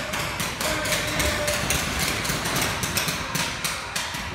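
Paintball markers firing in rapid, irregular strings of sharp pops, several a second.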